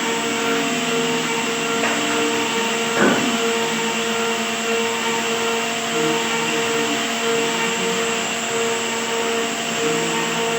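Woodworking power tool's motor running steadily with a whine, with a brief falling sweep about three seconds in.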